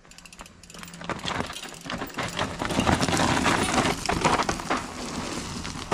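Mountain bike coming down a steep rocky trail: tyres crunching over stones and the bike clattering and rattling, building up about half a second in and loudest in the middle.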